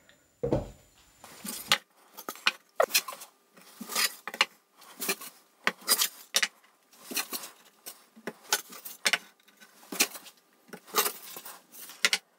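Coated chipboard panels and shelf boards clacking and knocking as they are set onto one another to dry-fit a shelf unit: a run of short knocks, about two a second, with a deeper thump near the start.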